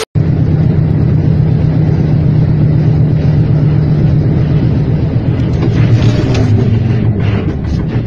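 Truck engine running with a steady low drone. About six seconds in its pitch falls, and a few light knocks follow near the end.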